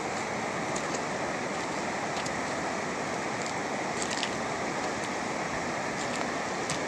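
Muddy floodwater rushing past in a steady noise of moving water.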